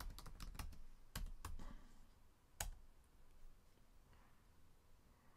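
Faint typing on a computer keyboard: a quick run of keystrokes in the first second and a half, then a single louder keystroke about two and a half seconds in.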